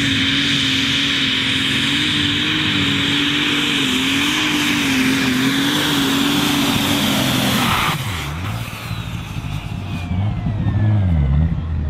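Super Stock pulling tractor's turbocharged diesel engine running flat out under load, its pitch wavering slightly. About eight seconds in the throttle is cut: the engine drops to a lower note and a high whine falls away, then the revs dip and rise a few times.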